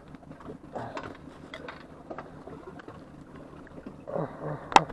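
Spinning reel being cranked to bring in a hooked fish, its gears ticking steadily. A sharp click near the end.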